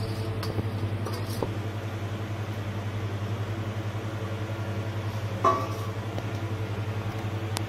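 A steady low mechanical hum with a fast, even pulse, like a small motor or fan running, with one short clink about five and a half seconds in.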